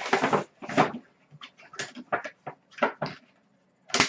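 Packaging and boxed collectibles being handled and moved, a series of short irregular knocks and rustles, loudest near the start.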